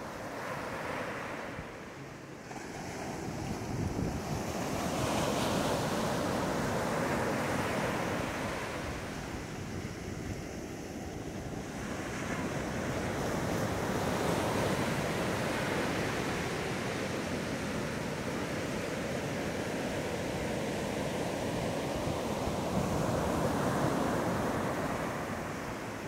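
Small ocean waves breaking and washing up a sandy beach, the surf rising and falling in about three slow swells.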